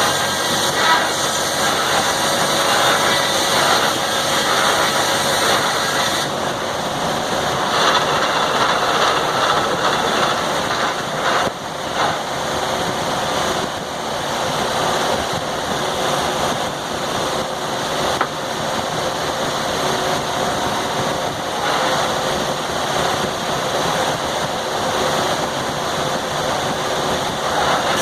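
Sawmill and its engine running steadily, a loud, even mechanical noise.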